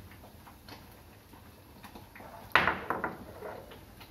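Stone pestle knocking in a small stone mortar of crushed mint leaves: one sharp knock about two and a half seconds in, followed by a few lighter clicks.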